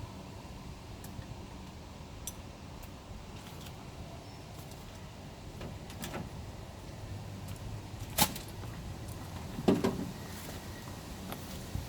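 Scattered light clicks and knocks over a low steady hum, with one sharp knock about eight seconds in and a short clatter just before ten seconds.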